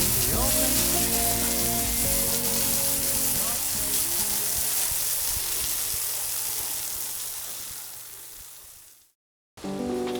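Water splashing and trickling in a fountain, a steady hiss. Background music fades out over the first few seconds, and the water sound fades away and cuts off near the end.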